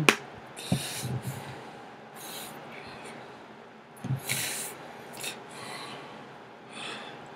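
Hands and clothing rubbing and brushing close to a webcam microphone as a person signs, with a few sharp taps, loudest right at the start, and several short hissy bursts.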